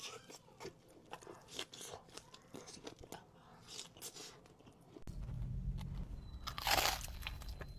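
Close-up crunchy chewing of crisp food, a quick run of small crackles, then a loud crunchy bite near the end. A low steady hum comes in about five seconds in.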